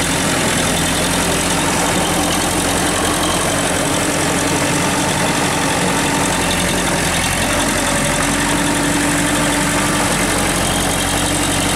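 TAFE 5900 DI tractor's diesel engine running steadily and loud while it pulls a rotary tiller through wet paddy mud.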